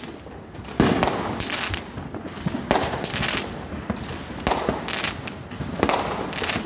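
Fireworks going off in a dense string of bangs and crackles, some with a trailing echo, the sharpest bang about a second in.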